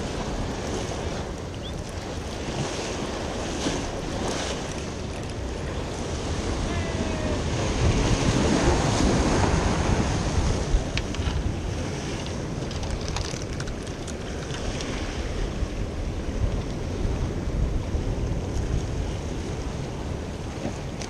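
Sea surf washing against rocks, with wind buffeting the microphone. A wave surges louder about eight seconds in, then eases off.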